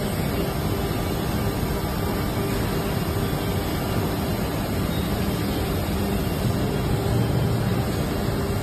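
Injection moulding machine running steadily with its pipe-fitting mould held closed: an even mechanical noise with a faint hum.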